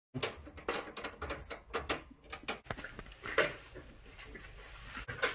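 French bulldog puppy playing at its wire crate, mouthing and tugging a hanging chew toy: quick irregular clicks, knocks and rattles.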